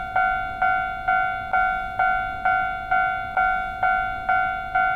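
Japanese railroad crossing alarm ringing its "kan kan" bell: one pitched ding repeating a little over twice a second, each ring fading before the next strikes.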